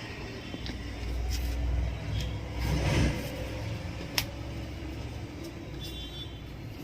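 A low rumble, strongest in the first few seconds, with a few light clicks and one sharper click about four seconds in.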